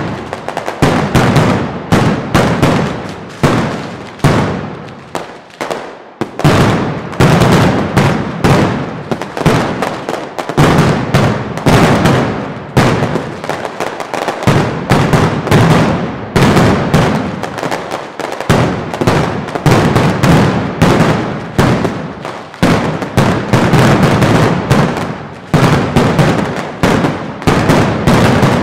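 Mascletà firecrackers going off in a dense, nearly continuous barrage of loud bangs, with a few short lulls.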